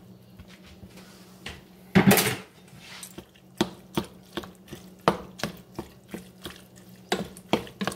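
A wooden spoon stirring elbow macaroni in a stainless steel pot, knocking against the pot about twice a second. A loud clatter comes about two seconds in, as the pasta goes into the pot.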